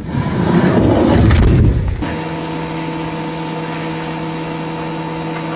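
2014 Ford Transit Mk8 van's engine starting: a loud rough burst for about two seconds as it cranks and catches, then settling into a steady idle.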